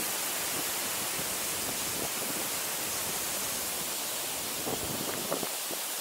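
Ōko-no-taki waterfall falling into its plunge pool: a steady rushing hiss of falling water. A few faint clicks come near the end.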